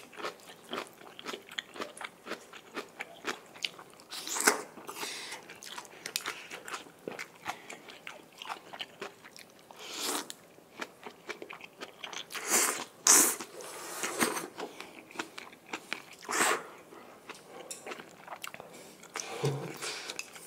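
Close-miked eating of Sichuan mala instant noodles with bok choy: steady wet chewing with many small mouth clicks, broken by several louder slurps of the noodles.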